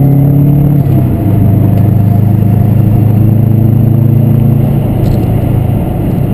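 Subaru WRX's turbocharged flat-four engine running under light throttle. Its note steps down in pitch about a second in, holds steady, then drops lower again about five seconds in as the car slows.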